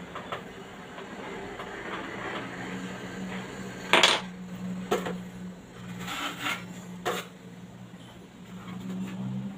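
Hand tools clinking and knocking against hard surfaces during tile work: a few sharp clinks, the loudest about four seconds in, over a steady low hum.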